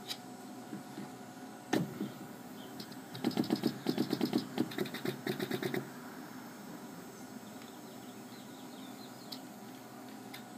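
Restored Seeburg Model K 58-note pneumatic stack working under vacuum over a steady motor hum. There is a single knock about two seconds in, then a fast run of clicks and knocks for about two and a half seconds as the pneumatics collapse and return.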